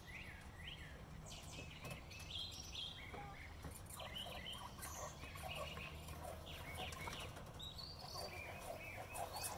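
Domestic hens clucking softly while small birds chirp.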